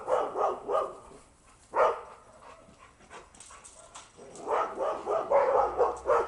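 A dog barking: a quick string of barks at the start, a single bark about two seconds in, then a fast run of barks from about four seconds in.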